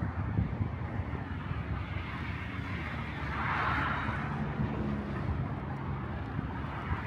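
Steady rumble of road traffic, with one vehicle's tyre noise swelling and fading as it passes about three to four seconds in.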